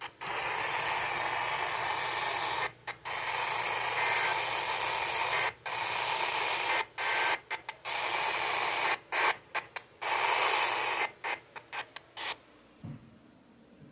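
Radio static: a steady hiss from a radio receiver, broken by many brief dropouts, cutting off suddenly about twelve seconds in.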